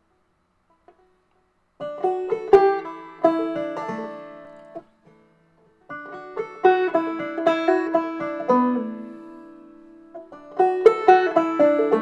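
Banjo picked in short phrases of plucked notes, each phrase ringing and dying away before the next, starting about two seconds in.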